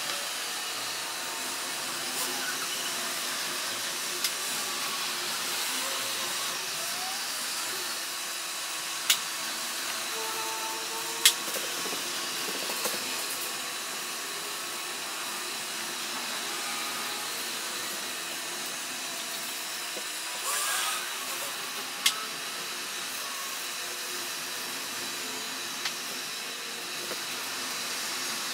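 Steady rushing hiss of highway traffic, broken by a few sharp clicks.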